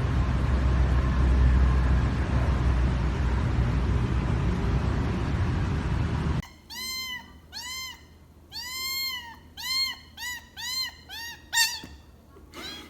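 A loud, steady rushing noise that cuts off after about six seconds, then a cat meowing about ten times in quick succession, high and short, one call held a little longer.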